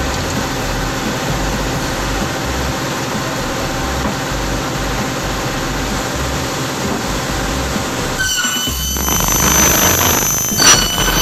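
Stationary circular saw for cutting aluminum, running with a steady machine sound. About eight seconds in, the blade cuts into an aluminum extrusion, and a high-pitched ringing squeal comes in and grows louder, with a sharp peak near the end.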